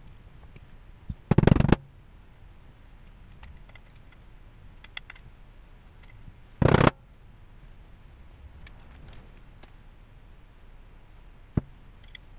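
Small metal clicks and taps from handling automatic-transmission valve body parts on a workbench. Two loud, short bursts of noise come through, one about a second and a half in and one near seven seconds.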